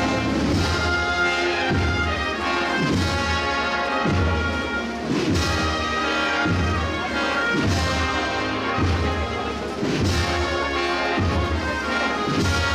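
Street procession band playing a Holy Week processional march: brass carrying the tune over a bass drum beat about once every second and a quarter.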